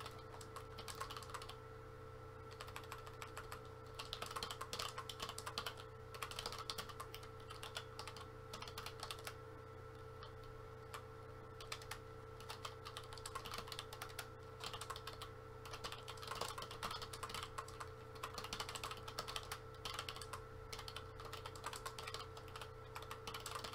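Computer keyboard being typed on in quick runs of keystrokes with short pauses between them, over a faint steady hum.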